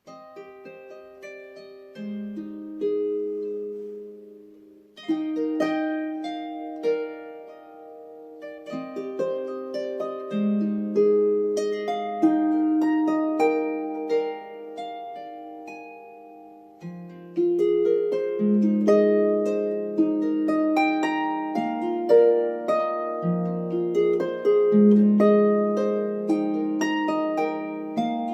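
Dusty Strings lever harp played solo: plucked notes and broken chords that ring on and overlap, starting softly and growing fuller about five seconds in. The harp is a little out of tune.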